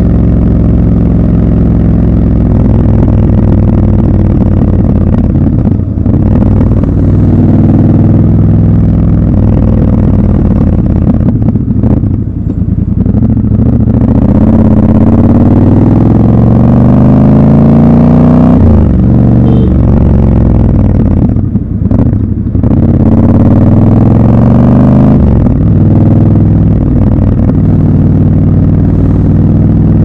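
Triumph Scrambler 1200 XC's parallel-twin engine and exhaust, heard from the rider's seat while riding in traffic. The engine note drops briefly a few times as the throttle closes, and twice climbs steadily as the bike accelerates, about halfway through and again a few seconds later.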